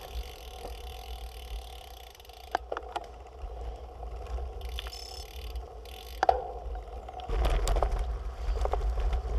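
Road bike rolling along a forest path, with a steady rumble of wind and tyres and a few sharp clicks. About seven seconds in, the rumble grows louder and a dense rattle sets in as the bike rolls onto rough cobblestones.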